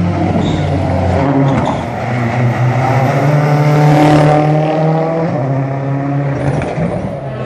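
Rally car engine at high revs as the car passes at speed on a stage. The engine note shifts in pitch, rising and falling, and is loudest about four seconds in.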